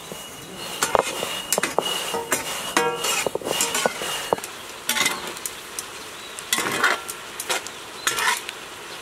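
A stone roller grinding on a flat ammi grinding stone, then a long metal ladle scraping and stirring prawns frying in a large iron kadai, with sizzling. The scrapes come as separate strokes every second or so.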